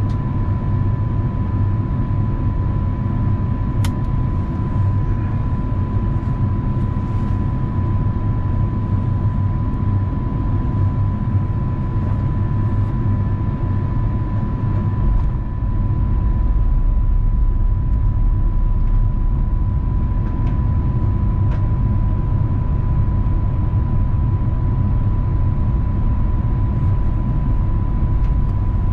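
Cabin noise inside an Airbus A350-900 during descent: a steady low rumble of airflow and engines with a thin steady whine over it. The rumble grows a little louder about halfway through.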